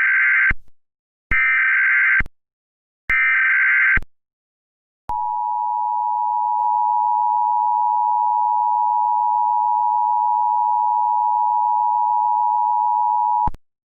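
Emergency Alert System SAME header: three short, loud bursts of warbling digital data tones about a second apart, followed by the EAS two-tone attention signal, a harsh steady dual tone held for about eight seconds before cutting off abruptly.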